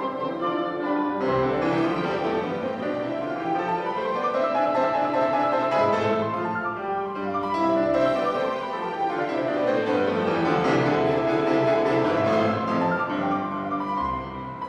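Instrumental background music with quick runs of notes rising and falling.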